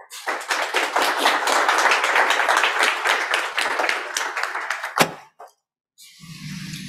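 Audience applauding for about five seconds, ending with one sharp knock. After a brief silence, a low rumble starts near the end.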